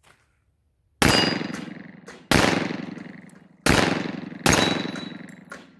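Four shots from a World War I-style 1911 .45 ACP pistol, spread over about three and a half seconds, each trailing off in a long echo.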